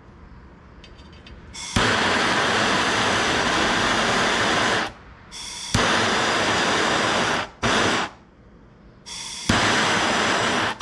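A loud, steady hissing jet of gas or air switched on and off in four bursts, each starting with a sharp click. The first two last about three and two seconds, the third is brief, and the last starts near the end.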